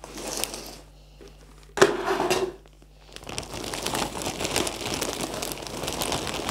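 A plastic bag of potting soil crinkling and rustling as soil is poured from it into a plastic plant pot. There is a sudden loud rustle of the bag just under two seconds in, then steady crinkling and pouring from about three seconds on.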